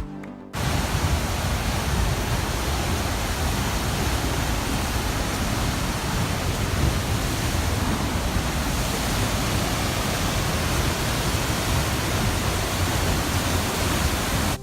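Waterfall's falling water: a steady, even rush that starts about half a second in and holds without change.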